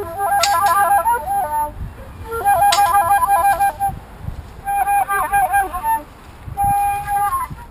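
Flute played in four short phrases of quick, trilling runs of notes, with brief pauses between the phrases.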